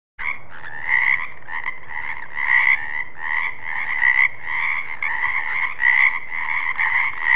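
Frog croaking over and over, about two croaks a second, starting abruptly out of silence just after the start.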